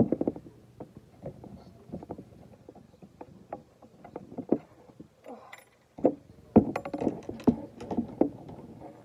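Close handling noise from a Shimano SLX baitcaster reel being worked by hand: irregular clicks, taps and knocks of its parts, louder and busier in the second half.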